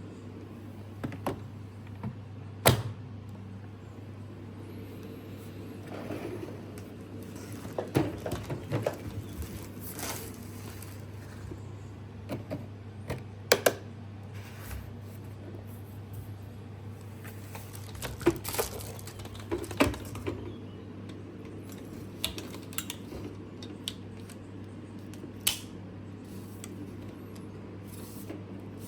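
Scattered clicks, knocks and short rustles of the vacuum cleaner and its packaging being handled, over a steady low hum.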